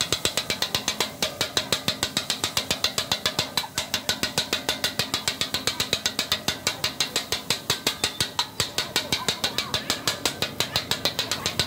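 Metal kothu blades chopping egg kothu parotta on a flat griddle: a steady, rapid metallic clacking of about five or six strikes a second.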